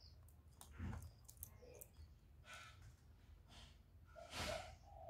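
Spotted dove: a few faint clicks and soft breathy rustles, then near the end the start of a low cooing phrase of short, deep notes.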